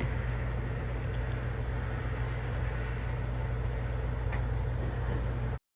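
Steady low hum with an even rushing noise, like a running motor or fan, which cuts off abruptly near the end.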